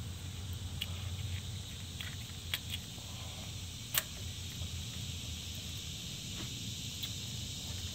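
Faint handling sounds from a gloved hand seating the rubber dust boot on a brake caliper slide pin: a few small clicks, the sharpest about four seconds in, over a steady low hum.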